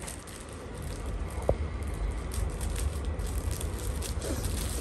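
Clear plastic packaging crinkling and rustling irregularly as it is handled, over a low rumble.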